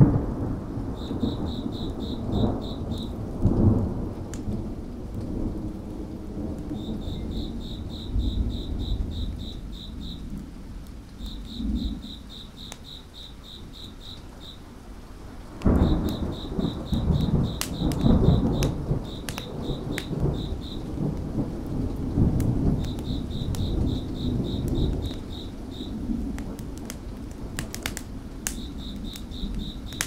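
Rolling thunder over steady rain, with a loud new roll of thunder about halfway through. A cricket chirps in repeated short trills, and a wood fire gives sharp crackles.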